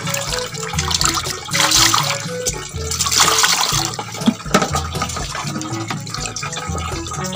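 Water splashing and sloshing in a metal basin as a hand swirls earthworms to rinse them, with louder splashes about two and three seconds in. Background music with a pulsing bass line plays throughout.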